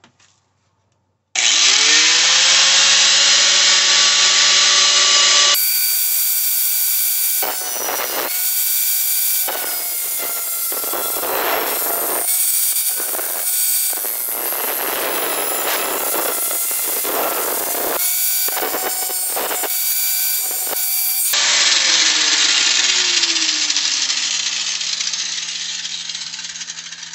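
Corded angle grinder with an abrasive cut-off disc spinning up about a second in and running free. It then cuts through a metal mirror-mounting rail for about fifteen seconds with a harsh, grating grind of disc on metal. Near the end it runs free again and winds down.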